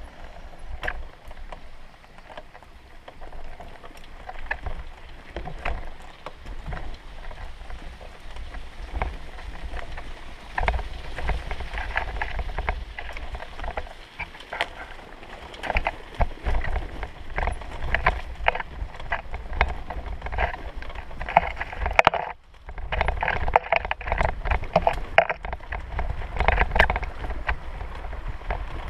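A vehicle driving slowly over a badly broken road, a low rumble with frequent knocks and rattles as it jolts, easing briefly about two-thirds of the way through.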